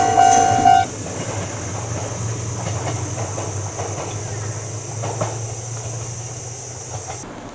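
A level crossing's electronic warning tone stops about a second in, leaving a Kintetsu train running past with a low hum, hiss and rail-joint clicks that slowly fade.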